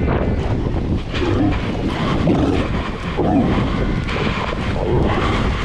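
Wind buffeting the microphone with a steady low rumble, over Cape fur seals calling in the colony: several short calls that rise and fall in pitch, scattered across the few seconds.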